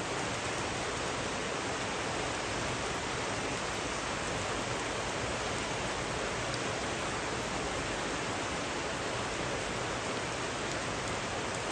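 Steady rain falling, an even hiss with no change.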